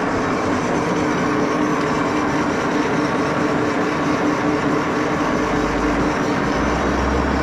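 Axelson gear-head lathe running steadily with a long steel bar in the chuck: a constant gear whine over machine noise, with a deeper low rumble coming in about five seconds in.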